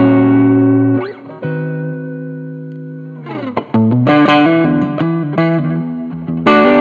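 Strat-style electric guitar played through a Fender Blues Junior tube amp with a Cannabis Rex speaker. A ringing chord and a bent note give way to a long sustained note, then a quick descending run, picked single-note phrases and a loud chord near the end.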